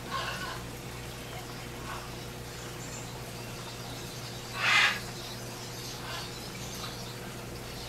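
Aquarium tank equipment running: a steady electrical hum with faint water sounds from the filtration. A short, loud rush of noise breaks in a little past halfway.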